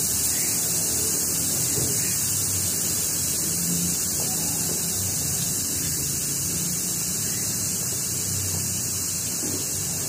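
Air hissing steadily out of a punctured tyre, a high, even hiss that slowly fades a little.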